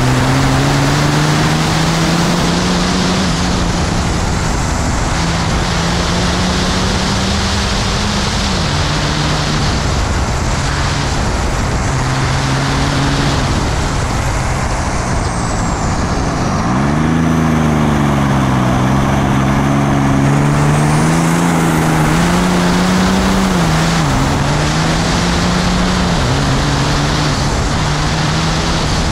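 6.7 Cummins turbo-diesel race engine running hard under load, its pitch climbing and dropping several times through gear changes and corners, with a deep dip and climb again about two-thirds of the way through. A steady rushing noise lies over it throughout.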